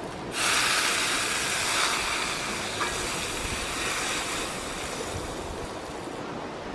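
Hot oil and fried aromatics poured from a wok into a clay pot of fish soup, setting off a loud sizzle. It starts suddenly and slowly dies away over several seconds.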